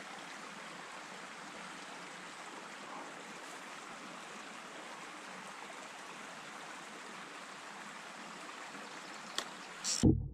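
Small creek running with a steady low rush and trickle of flowing water. Near the end, a sharp click and then a brief loud knock.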